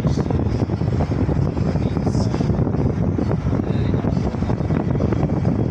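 Steady low rumbling noise, dense and continuous, with faint brief hisses above it.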